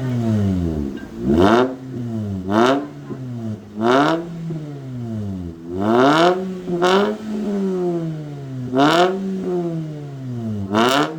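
Hyundai i20 with a full-system exhaust and Stage 2 pops-and-crackles tune, its engine revved up and let fall again and again. About seven loud bangs fire from the exhaust as the revs drop off, the bangs on decel that the tune is set up to give.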